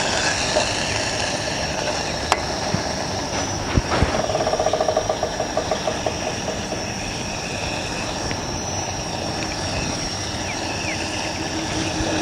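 Portable gas stove burning steadily under a pot of simmering green curry, with a metal ladle stirring in the pot. A rapid rattle lasts for a couple of seconds about four seconds in, and there is a single sharp click earlier.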